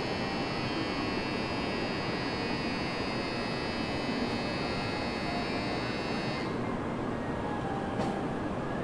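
Platform departure bell ringing steadily, then cutting off about six seconds in, over the steady rumble of station air conditioning and machinery.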